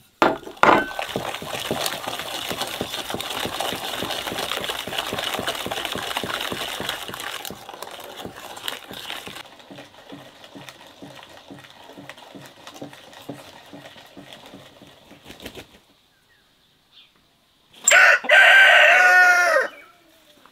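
A rooster crows once near the end, a loud call lasting about two seconds. Before it, a dense noise with many fast clicks fills the first half, then fades to faint, regular ticking.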